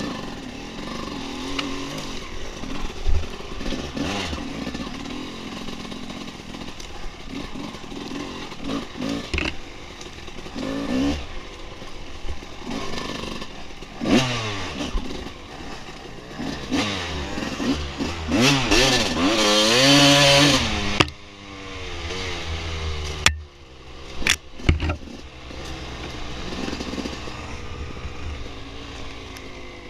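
Dirt bike engine on a trail ride, the throttle opening and closing so the pitch rises and falls. About two-thirds of the way through it revs up in a long climb and then drops off sharply, followed by a few sharp knocks.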